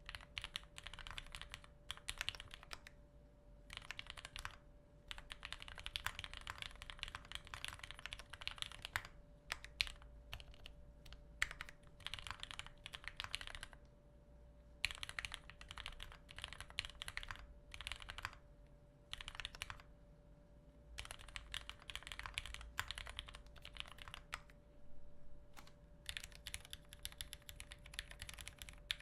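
Typing on a TX-65 65% custom mechanical keyboard with a brass plate and GMK Oblivion keycaps: fast runs of keystrokes in bursts of a few seconds with short pauses between. The sound is a soft, rounded clacking at low volume, likened to wet gravel, with no case ping, no rattle from the stabilisers, and a spacebar that doesn't stand out.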